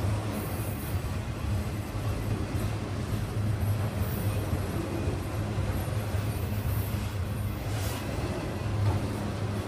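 Freight train of enclosed autorack cars rolling past: a steady low rumble of steel wheels on the rails, with a few brief, faint high squeals.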